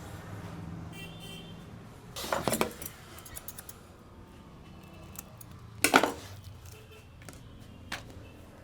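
Small hard objects clattering and clinking, in two louder bursts about two seconds in and about six seconds in, with a few lighter ticks between them.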